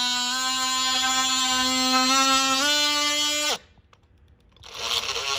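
Oscillating multi-tool (oscillating saw) buzzing as it cuts to enlarge a dryer vent opening, its pitch stepping up a little under use. About three and a half seconds in it winds down and stops, then starts up again about a second later with rising pitch.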